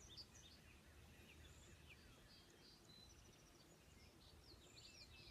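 Near silence, with faint chirps and twittering of songbirds throughout over a low background hum.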